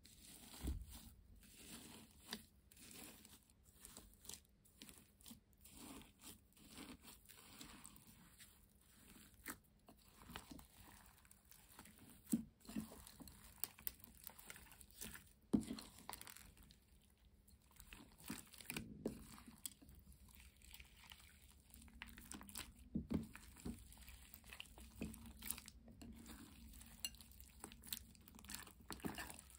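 Slime mixed with glitter, sequins and gold leaf being pressed, stretched and folded by hand, giving irregular soft crinkly crunches and squishes, with an occasional louder pop or crackle.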